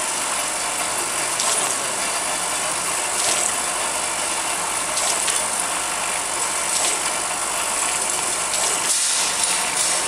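GZ 50 vial crimping machine running: a steady mechanical noise from its rotary table and drive, with a light click every couple of seconds.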